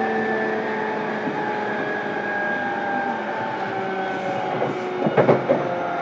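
JR East E233-7000 series electric train heard from inside a motor car, running on the rails. Several steady inverter and traction-motor tones drift slowly lower in pitch over the running noise. A few sharp knocks from the wheels come about five seconds in.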